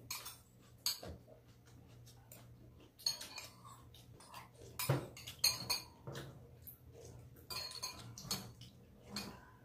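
A metal spoon clinking and scraping against a ceramic bowl, with other tableware knocks, in short irregular clicks during a meal; they are thickest from about three seconds in.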